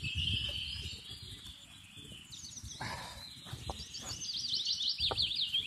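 A songbird singing: a quick run of high, repeated chirping notes that starts about halfway through and grows busier toward the end.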